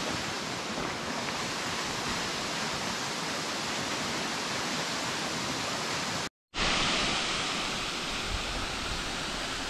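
Fairy Falls, a tall plunge waterfall, rushing steadily: an even hiss of falling water, broken once by a brief cut about six seconds in.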